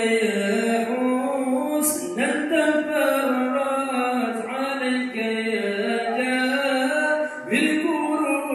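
A group of men chanting Acehnese dike, devotional maulid verses, into microphones. The melodic lines are long and held, gliding between notes, with no instruments.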